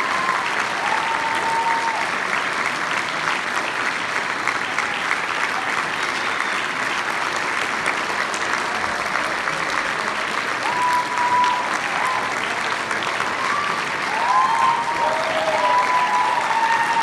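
A large audience applauding steadily after a choral-orchestral performance, with a few whooping cheers rising above the clapping about a second in and again near the end.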